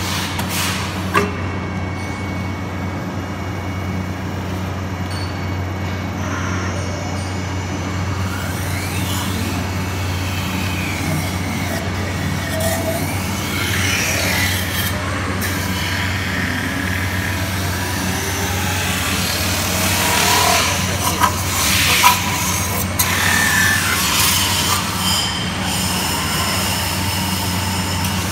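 CNC metal spinning lathe running with a steady low hum while its forming roller presses a spinning aluminium disc into a lamp shade, the roller on the metal giving rising and falling squeals that grow busier and louder about two-thirds of the way through. A sharp click about a second in and a couple more near the loudest part.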